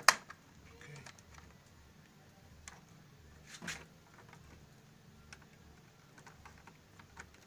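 Plastic clicks and snaps from a Gateway ID54 laptop's hinge and power-switch cover strip being pressed down into its clips, with a sharp snap at the start, another about three and a half seconds in, and light handling clicks between.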